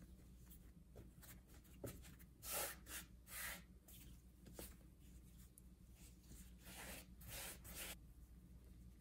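Hands kneading and shaping a ball of yeast dough on a floured wooden board: faint soft rubbing and swishing strokes, a few louder ones in the middle and again near the end.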